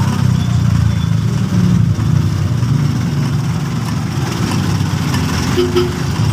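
Vehicle engine running steadily, a low drone heard from inside the vehicle as it drives along a street.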